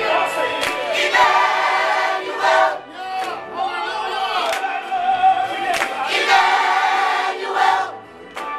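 A group of adults and children singing a song together in phrases, with brief breaks between lines.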